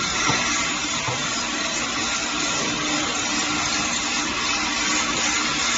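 Rotary syrup filling and ROPP capping machine running: a steady mechanical whirr and hiss with a constant low hum.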